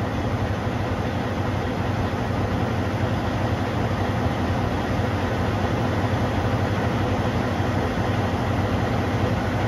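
Semi truck's engine idling steadily, a constant low hum with an even rushing noise over it.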